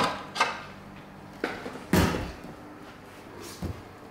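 Metal clunks and knocks as a stainless steel stand-mixer bowl is unlatched and lifted off the mixer, then set down on the countertop. There are five separate knocks, the loudest about two seconds in.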